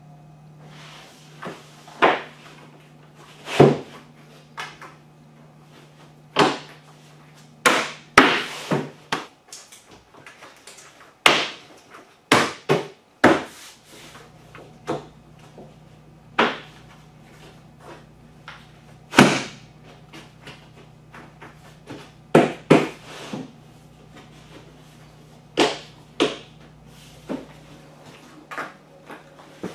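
Laminate flooring planks being handled, set down and tapped into place: sharp, irregular knocks and clacks, a dozen or more spread unevenly, some in quick pairs.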